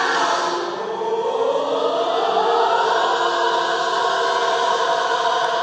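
A choir singing, gliding upward about a second in to one long held chord that stops right at the end.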